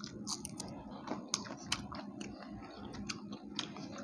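People chewing and eating by hand, with frequent short wet mouth and lip clicks as they eat puri dipped in haleem.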